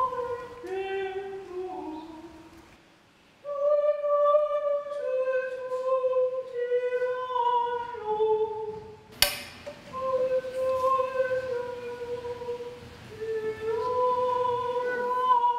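Background music of unaccompanied singing: a high voice holding long notes one after another, with a short pause a few seconds in. A single sharp click about nine seconds in.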